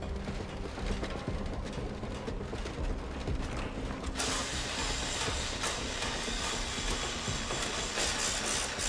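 Mechanical clatter of construction work, with wheelbarrows rattling. About four seconds in, a grinder cutting metal joins in as a much louder, hissing grind, over a low music drone.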